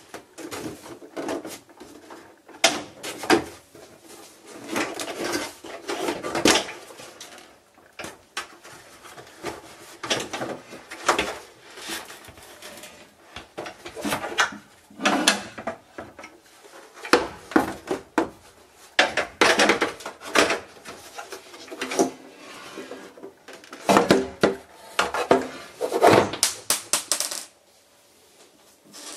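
Hard plastic parts of a Casio CTK-541 keyboard clattering, knocking and rattling as the case and key assembly are handled and lifted apart by hand, in irregular clusters of clicks and knocks that die down near the end.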